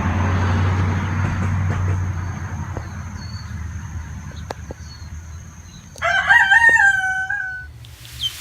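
A rooster crows once, loud and drawn out, about six seconds in, lasting under two seconds. Before it a rushing hiss fades away over the first few seconds, and a high chick peep sounds at the very end.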